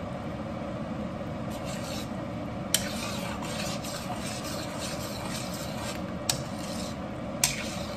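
Metal spoon stirring and scraping through chicken paprikash with dumplings in a stainless steel pan, as a steady scraping rub. Three sharp clicks of the spoon striking the pan: about three seconds in, a little after six seconds, and near the end.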